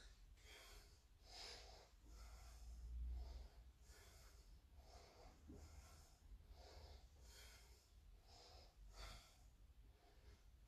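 Faint, quick, rhythmic breaths of a man doing Russian twists, roughly one or two breaths a second in time with the twists.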